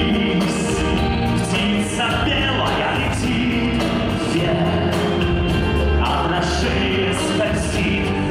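Live pop-rock band playing a song: a male lead vocal over electric guitar, keyboards and drums, steady and loud.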